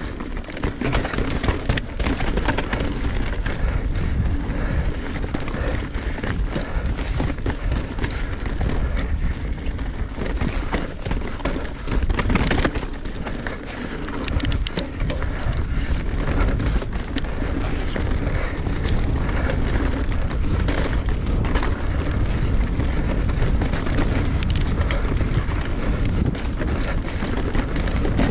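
Mountain bike riding down a rocky dirt trail: wind buffeting the GoPro's microphone at speed, over tyre noise on dirt and rock and frequent knocks and rattles from the bike over bumps.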